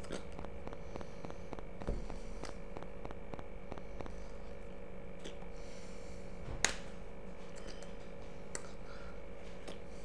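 A steady background hum made of several fixed tones. Faint ticks come about four a second over the first few seconds, with one sharper click about two-thirds of the way through.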